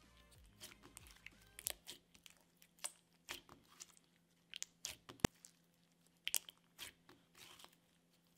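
Thick metallic clear-base slime being stretched, pressed and folded by hand, giving faint, scattered sticky clicks and crackles, with one sharper click about five seconds in.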